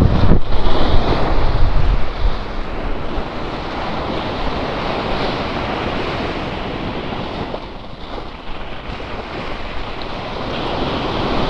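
Sea waves washing onto a beach, the surf easing off and building again. Wind buffets the microphone in the first couple of seconds.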